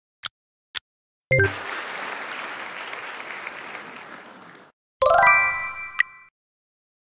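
Countdown-timer ticking sound effect, two ticks, then an applause sound effect with a ding at its start that fades out over about three seconds. After that comes a short, bright chime of rising notes ending in a click.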